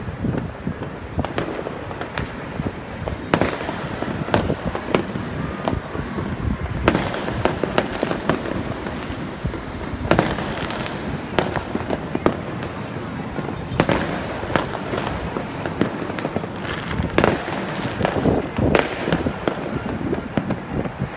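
Fireworks going off: sharp, irregular bangs about every second or two over a continuous rumble of many more distant bursts.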